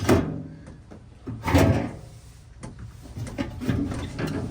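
Plastic bins and panels inside a refrigerator freezer being slid and knocked about: a few scrapes and clunks, the loudest about one and a half seconds in.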